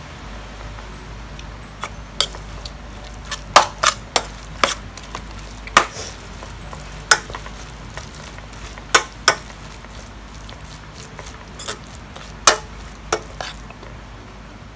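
A metal spoon stirring and tossing a thick minced fish mixture in a stainless steel pan, clinking sharply against the pan about a dozen times at irregular intervals.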